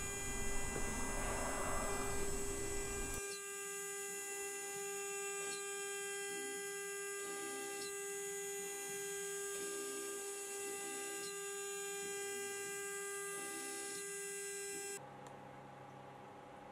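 CNC router spindle running at 24,000 RPM while a tiny end mill engraves wood, heard as a steady whining hum. The hum drops away abruptly about fifteen seconds in, leaving a fainter background hum.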